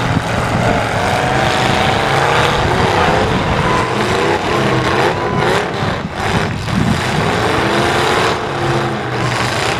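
Several demolition derby pickup truck engines revving and running together, their pitch rising and falling as the trucks drive and ram. A few sharp knocks come about five to six and a half seconds in.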